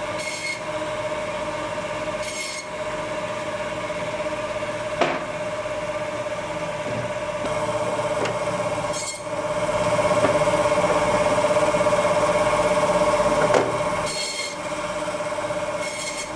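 Electric meat band saw running with a steady whine while its blade cuts through bone-in meat, with a rasping scrape as each piece is pushed through. The cutting grows louder for a few seconds past the middle, with a couple of sharp ticks.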